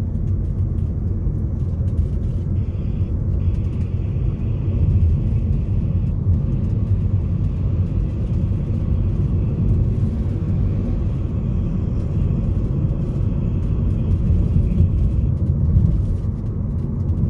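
Steady low rumble of engine and road noise inside a Honda HR-V's cabin while it drives along at an even pace.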